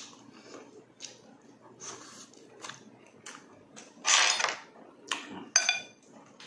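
Close-up eating sounds of a person eating with the hands: wet chewing with short, sharp mouth clicks and lip smacks. About four seconds in comes a louder breathy burst lasting about half a second, followed by a sharp smack.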